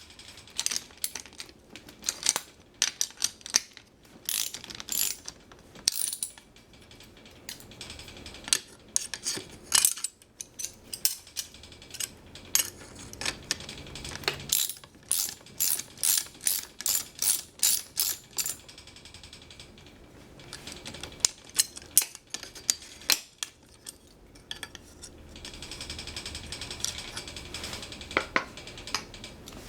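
Ratchet wrench clicking in quick runs of strokes with short pauses between, as a wheelchair wheel's fastening is worked loose.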